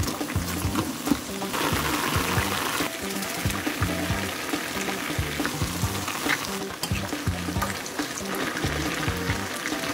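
Chicken and vegetable stew bubbling and sizzling in a frying pan, with spatula clicks and stirring, over background music with a repeating bass line. The sizzling hiss is louder from about one and a half to three seconds in.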